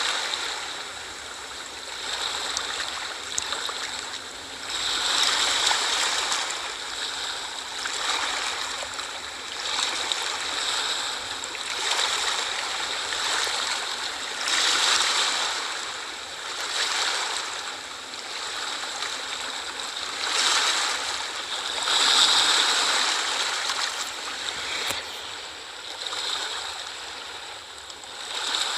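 Small sea waves washing in and drawing back, each swell rising and falling every two to three seconds.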